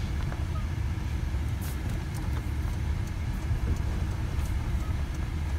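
Steady low rumble of a car heard from inside the cabin as it drives slowly: engine and road noise.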